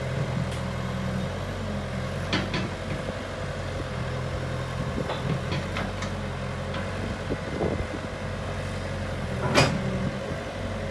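Backhoe's diesel engine running steadily, with several sharp knocks over it, the loudest near the end.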